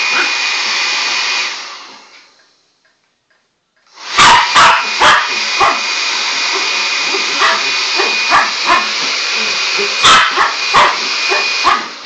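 A hair dryer blowing with a faint steady whistle. It is switched off about a second and a half in and winds down to silence, then is switched on again about four seconds in and runs until just before the end. A dog barks repeatedly over it, several times just after it comes back on and again in a burst near the end.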